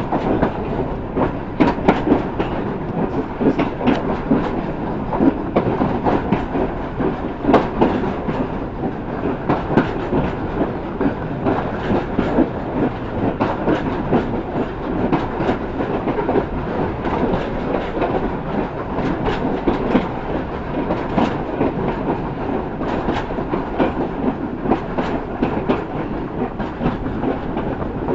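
Railway carriage running along the track, heard from an open carriage window: a continuous rumble of wheels on rail with many sharp, irregular clicks.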